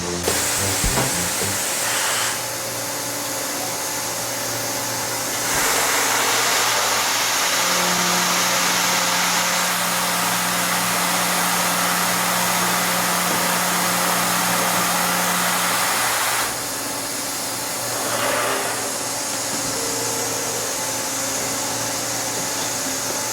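CNC gear hobbing machine running: steady machine noise with a strong hiss. It grows louder for about ten seconds in the middle, with a steady hum through most of that stretch.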